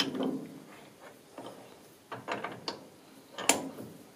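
Piston-type quick change tool post on a lathe being worked by hand: a series of short metal clicks and clunks as the locking lever is swung and the tool holder handled, the loudest clunk about three and a half seconds in. The lever is being tried out after its piston plates were ground down so that it locks further round.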